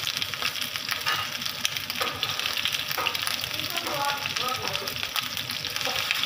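Oil sizzling and crackling steadily in a frying pan as stuffed green chillies shallow-fry over low heat.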